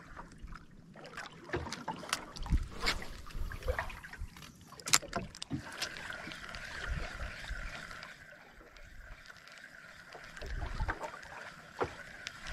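Scattered clicks and low knocks of handling and gear in a small boat, with a wavering high whine that drops out for the first few seconds and returns about halfway through.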